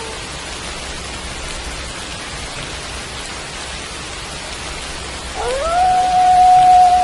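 Steady rain falling. About five seconds in, a wolf starts a howl that rises in pitch and then holds one long steady note.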